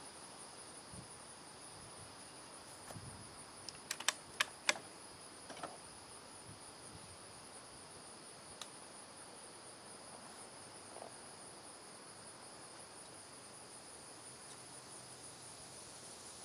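Steady high-pitched chorus of insects trilling in the grass, faint, with a quick run of four or five sharp clicks about four seconds in.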